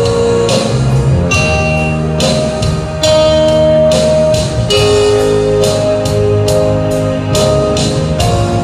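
Live band music: sustained keyboard-like chords and held notes over a steady drum and cymbal beat, about two strikes a second.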